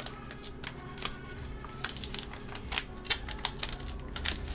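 Trading-card pack wrapper being opened and crinkled in the hands, with the cards slid out: a run of irregular sharp crinkles and clicks.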